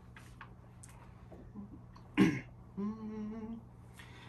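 A man clears his throat once, about two seconds in, then hums a short steady note for under a second, warming up his voice just before he starts to sing.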